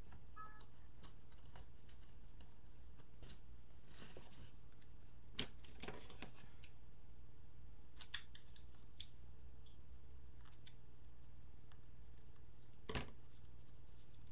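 Scissors snipping paper a few times, with faint paper handling between the cuts.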